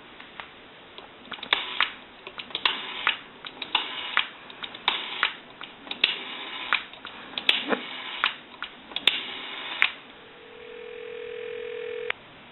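Automatic Electric rotary dial on a candlestick telephone pulsing out a number, heard on the line as groups of sharp clicks. Near the end a steady ringback tone sounds for about two seconds as the call rings through.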